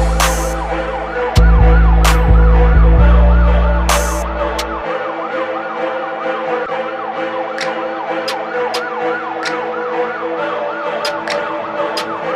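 Background electronic music with a repeating siren-like synth whoop over a steady chord; the heavy bass drops out about five seconds in.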